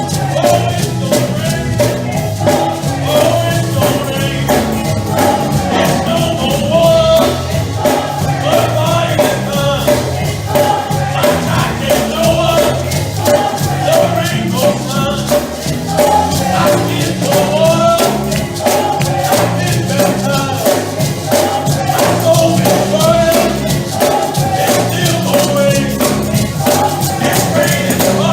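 Gospel praise and worship music: voices singing together over a fast, steady tambourine and drum beat with a bass line underneath.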